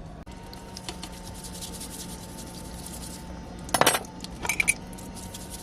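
Dishes and cutlery clattering during cooking: light rubbing and scraping, then a louder clatter about four seconds in and a few smaller clinks just after, over a steady low hum.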